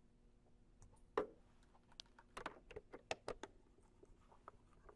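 Faint clicking and tapping at a computer's controls: a single click about a second in, then a quick run of about a dozen light clicks over the next second and a half.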